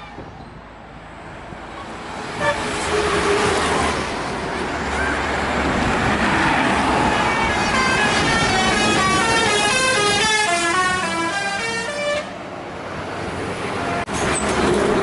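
Bus passing by with its telolet horn, a multi-tone air horn, playing a quick melody of changing notes over engine and road noise. The horn stops abruptly a few seconds before the end.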